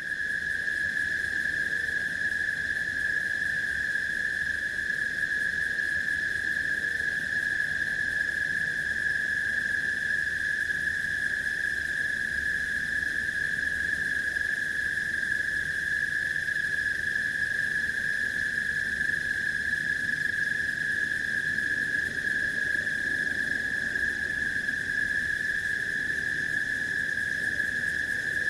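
Forest ambience: a dense, unbroken, high-pitched chorus of calling animals, with a faint low rumble beneath.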